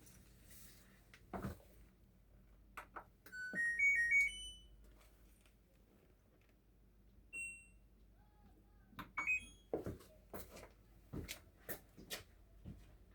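LG F2DR5S8S6W washing machine's control panel playing its short power-on tune of stepped electronic beeps, then single key beeps as the program is set. Sharp clicks and knocks of the panel and machine being handled run throughout, thickest in the second half.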